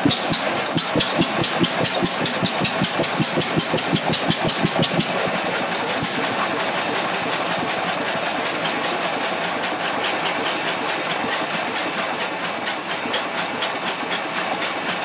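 Large old stationary engine running, its big flywheel turning, with an even, rapid beat of about four strokes a second that is sharpest in the first five seconds.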